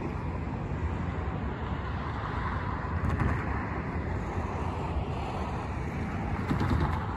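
Road traffic: cars driving past one at a time, one swelling by about three seconds in and another near the end, over a steady traffic rumble.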